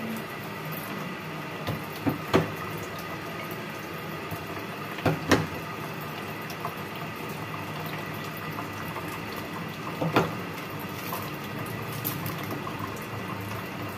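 Kitchen tap running steadily into a stainless steel sink as a bunch of green onions is rinsed under it, with a few sharp knocks.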